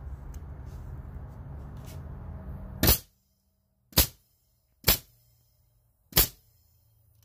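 Banks framing nailer firing four times into a wooden beam on its multi-fire setting, each nail driven with a sharp bang, about a second apart.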